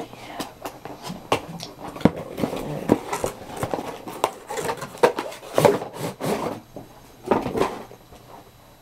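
Irregular clicks, knocks and rustling from scissors and packaging being handled close to the microphone, with a couple of longer scraping stretches in the second half.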